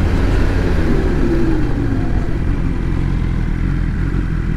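BMW XR motorcycle engine running under way, its pitch easing down a little between about one and two seconds in as the bike slows, with wind and tyre noise on the rough road surface.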